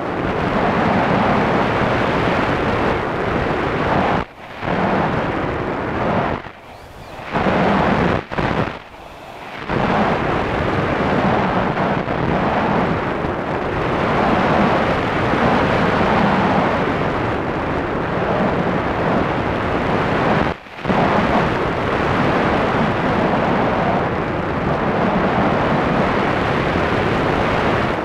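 Wind rushing and buffeting over the microphone of a camera riding on a flying RC plane, a loud steady rush that drops off sharply for brief moments about four, six, eight to nine and twenty seconds in.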